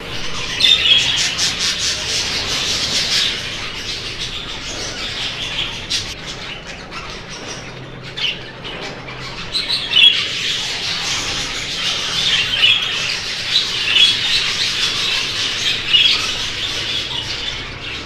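A flock of exhibition budgerigars chattering and squawking, a steady jumble of warbles and chirps that grows busier again about halfway through.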